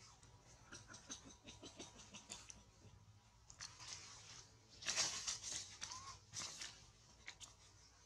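Leaves rustling and small twigs crackling as a baby macaque climbs and swings through a sapling's branches, with a louder burst of rustling about five seconds in.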